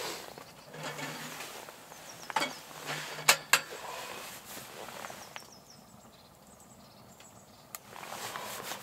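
Split firewood being handled by a wood-burning tent stove: rustling of wood and clothing, with a few sharp knocks of wood on wood around the middle and another near the end.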